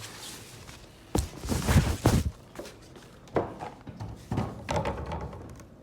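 Handling noise from a steering-wheel quick release being picked up and turned over: a sharp knock about a second in, then a cluster of thumps and rustling, with a few more knocks and rustles later.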